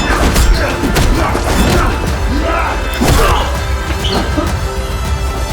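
Action-film score over staged fight sound effects: repeated heavy thuds, whacks and crashes of blows and bodies hitting things.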